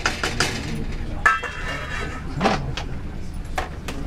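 Metal kitchen utensils clinking and tapping against a cooking pot several times, with a brief ringing clink about a second in, over a steady low hum.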